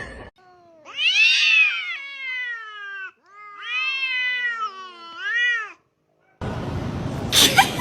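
A domestic cat giving two long, drawn-out meows, the second one rising again just before it ends. After a short pause, a steady rushing noise starts near the end.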